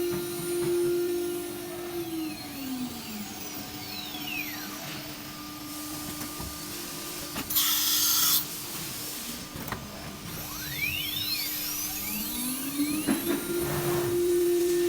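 CNC router spindle whining at a steady high pitch, then winding down. About halfway a short, loud hiss of compressed air sounds, and the spindle then winds back up to the same steady whine. The pattern is typical of an automatic tool change.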